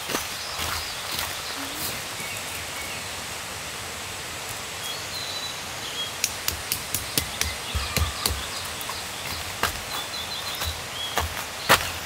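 Forest ambience with small birds chirping now and then over a steady outdoor hiss. From about halfway in comes a run of irregular sharp knocks and clicks, some with a dull thud, and the loudest comes near the end.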